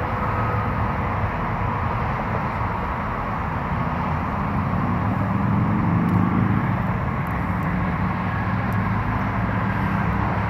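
Steady low rumble of vehicle engines running, with no distinct events.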